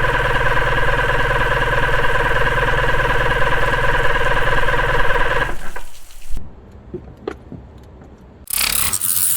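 An engine running steadily at idle, which cuts off about five and a half seconds in. A few faint clicks follow, then a short loud rush of noise near the end.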